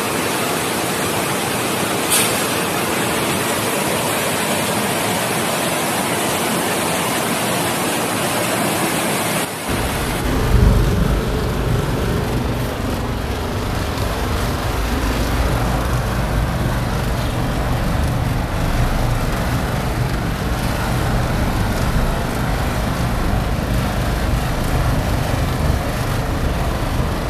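Steady roar of rushing floodwater. About ten seconds in it changes abruptly to a deeper, heavier rumble.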